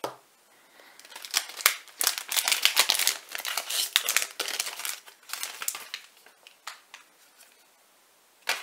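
Trading-card booster pack wrapper crinkling and tearing as the pack is opened by hand: a dense run of sharp crackles from about a second in, thinning out after about six seconds.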